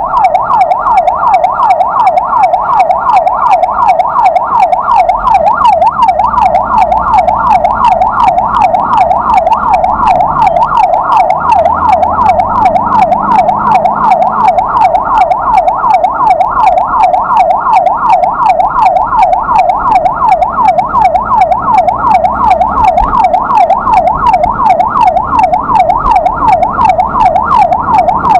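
Ambulance's electronic siren in yelp mode: a fast wail sweeping up and down about three times a second without a break, with low vehicle rumble underneath.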